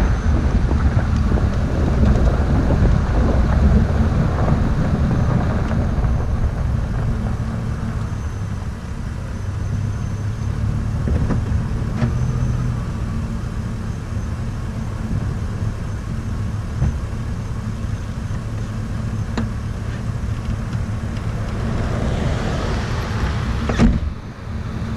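Pickup truck driving, with wind rushing over the microphone and a low engine and road rumble, easing after about eight seconds as the truck comes to a stop. The engine then idles steadily, another vehicle swells past near the end, and there is a sharp click just before the end.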